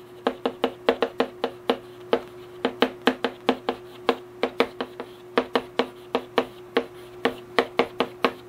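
Handwriting on a board: a quick, uneven run of sharp taps, about four a second, as each stroke of the characters is put down, over a faint steady hum.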